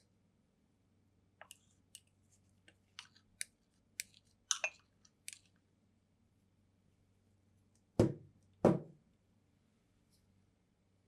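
Kitchen handling sounds: a string of light clicks and taps, then two heavier knocks in quick succession.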